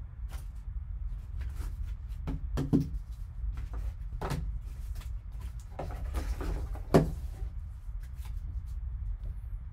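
Handling noise from a foam-lined card box being opened: scattered light clicks, rustles and knocks as the foam insert is lifted out and a cased card is taken from it. Two sharper knocks stand out, one about a third of the way in and one about two-thirds in, over a steady low hum.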